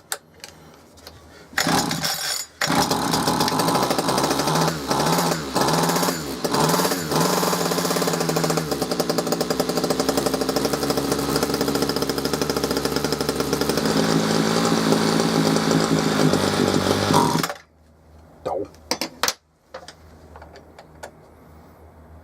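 Ryobi hedge trimmer's small two-stroke engine firing up with a freshly fitted replacement carburettor still being tuned. It catches, cuts out for a moment and catches again, is revved up and down a few times, then runs steadily before stopping suddenly near the end. A few light knocks follow.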